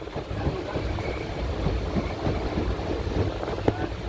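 Running noise of a moving passenger train heard from inside the carriage: a steady low rumble and rattle, with wind buffeting the microphone and a sharp knock about three and a half seconds in.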